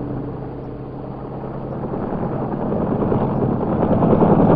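Helicopter engine and rotor running on a ship's deck, growing steadily louder as it lifts off.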